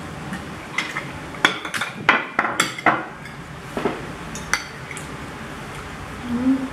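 Metal spoon and fork clinking and scraping against ceramic plates while eating, a quick run of clinks in the middle.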